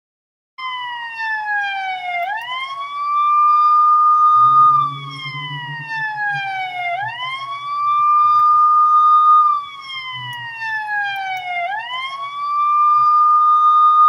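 Police siren wailing in a repeating cycle about every four and a half seconds: a slow falling glide, then a quick sweep back up to a held high note. It goes through three cycles and is loudest on the high note.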